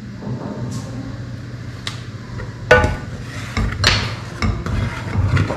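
A few sharp clinks and knocks of kitchen utensils against a steel saucepan, a small bowl tapped as cardamom powder is tipped into the milk and a ladle stirring, with duller thuds in the second half, over a steady low hum.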